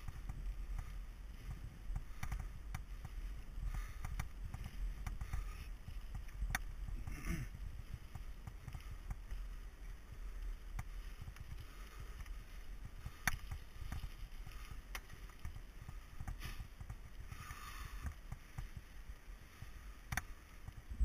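Mountain bike riding down a gravel forest trail: wind rumbling on the microphone over the tyres rolling on loose surface, with a few sharp knocks and rattles from the bike as it goes over bumps.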